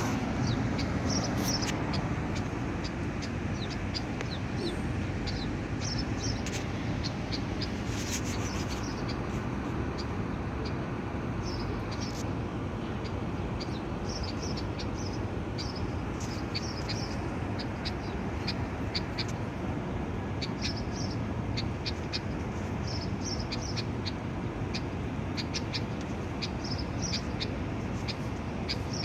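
Short, high chirps or squeaks from a small animal or bird, coming in quick clusters again and again over a steady background noise.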